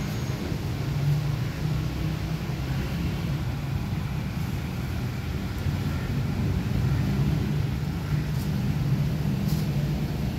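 A steady low mechanical hum, like a running motor or engine, with two faint clicks in the second half.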